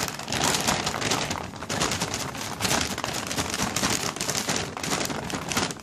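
Brown paper bag crackling and rustling as it is gripped shut at the top and shaken with crumpled paper slips inside; the dense crackle stops near the end.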